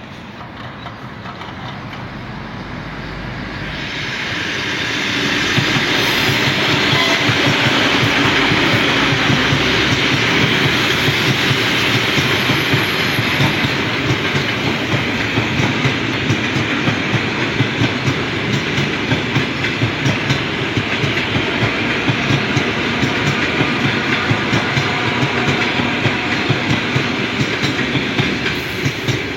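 A train passing close by, its wheels clicking steadily over rail joints. It grows louder over the first few seconds and begins to fade near the end.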